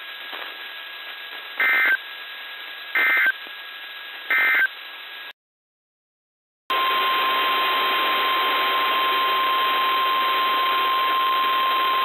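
NOAA Weather Radio broadcast received over the air: three short SAME end-of-message data bursts about a second and a half apart over radio static, marking the end of a Required Weekly Test. After a cut to silence of over a second, the station's steady 1050 Hz warning alarm tone sounds over hiss.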